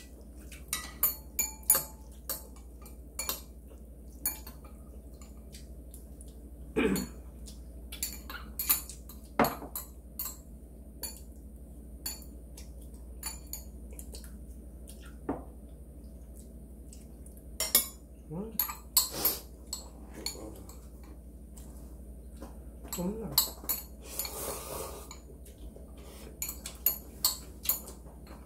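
Metal chopsticks and spoons clinking against ceramic bowls and a pot of ramyun in many short, sharp taps, with an occasional slurp of noodles.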